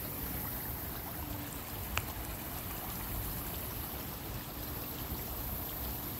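Shallow river flowing over rocks: a steady rushing hiss, with one brief click about two seconds in.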